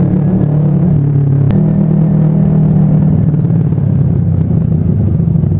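Kawasaki Ninja 250 carburetted parallel-twin engine running steadily under way, heard from the bike. A short click comes about a second and a half in, after which the engine note steps up slightly.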